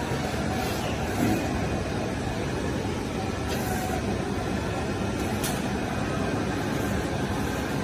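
KOM ASC1907A automatic sheet-fed decal cutting machine running steadily, with a few faint clicks, as it feeds, cuts and ejects printed sheets.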